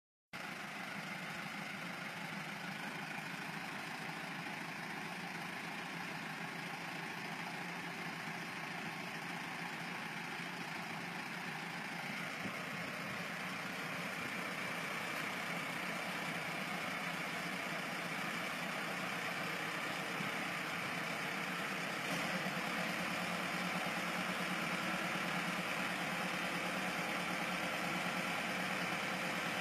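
Massey Ferguson MF385 tractor's diesel engine running steadily at idle while the front-loader bucket is raised, getting a little louder about three-quarters of the way through.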